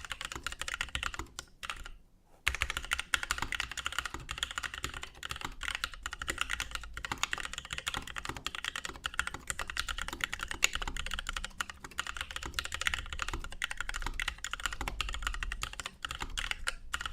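Mechanical keyboard with lubed NovelKeys Kailh Cream linear switches on a brass plate and DSA keycaps, typed on quickly and continuously in a dense run of key clicks, with a brief pause about two seconds in.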